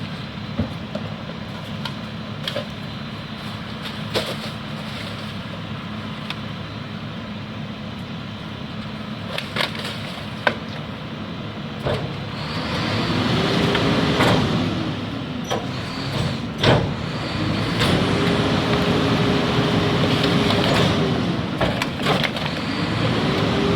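Garbage truck's diesel engine idling with scattered clanks and knocks, then revving up and back down three times as the hydraulic packer runs.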